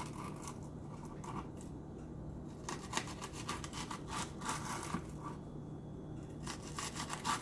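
Kitchen knife slicing through layered raw cabbage onto a wooden cutting board, in short runs of cutting strokes about every one to two seconds.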